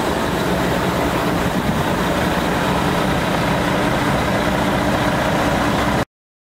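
Volvo FM tipper truck's 13-litre inline-six diesel engine running steadily at idle, cutting off suddenly near the end.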